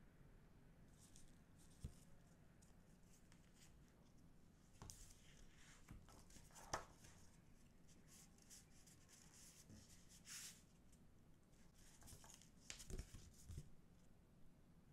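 Faint rustling, sliding and tapping of paper inserts, photobook pages and glossy photocards handled by gloved hands, with a few sharper taps and clicks, one about seven seconds in the loudest.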